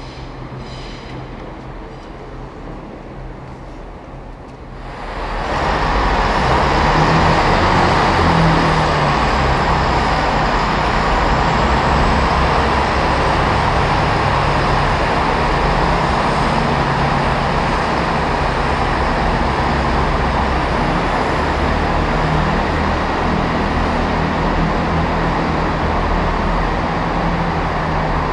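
Class 165 diesel multiple unit's underfloor diesel engines running loudly in a steady drone, with the engine note wavering as the train pulls away from the platform. The first five seconds hold a quieter station background before the engine noise cuts in.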